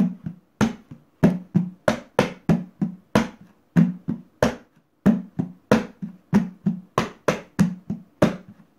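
Hand drumming on an upturned empty plastic rubbish bin, played like a conga in a repeating tumbao pattern of about three hits a second. Each hit rings with a hollow low tone. Open palm strokes on the middle of the base mix with sharper, brighter slaps on the bin's side.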